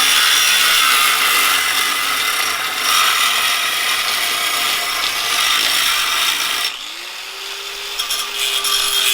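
Angle grinder grinding a piece of steel, a loud harsh hissing grind. Near the end the load drops away and the motor's steady whine is heard running free, then the disc bites the metal again.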